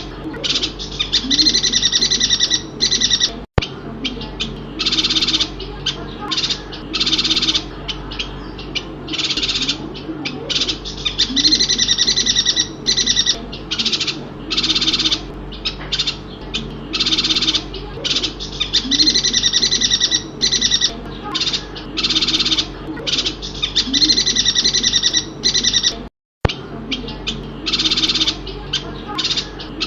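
Chestnut-crested yuhina calling: short, high-pitched chattering phrases repeated again and again every second or two. The sound drops out abruptly twice, where the recording is cut.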